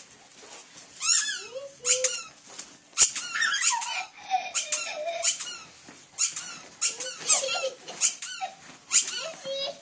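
A dog whining and squealing with excitement: repeated high-pitched squeals that drop in pitch, with longer, lower whines between them.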